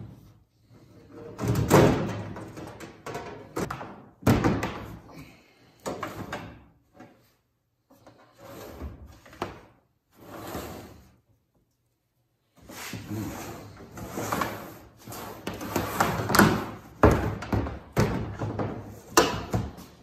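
A microwave oven's loose sheet-metal outer cover clattering and banging as it is worked back onto the chassis, with sharp knocks and rattles as the oven is shifted and turned on a plastic bin. There is a quiet gap about halfway through.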